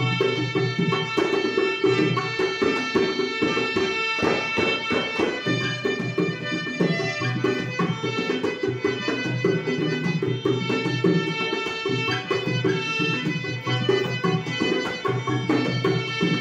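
Harmonium playing held reed chords over a steady rhythm of hand strokes on a two-headed barrel drum, in a folk-style duet.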